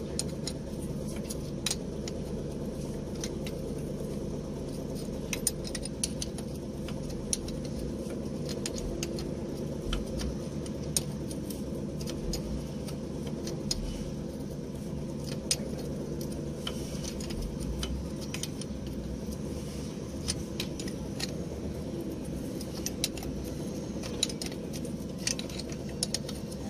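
Metal wrench clinking and ticking on the mounting nuts of a new truck starter motor as it is bolted up, in short irregular clicks. A steady low hum runs underneath.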